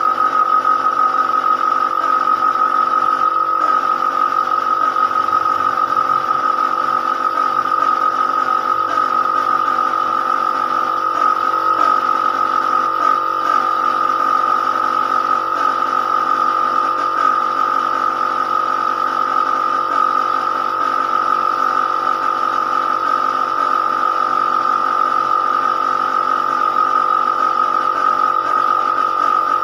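A machine running steadily at constant speed, with a strong high whine that holds one pitch throughout.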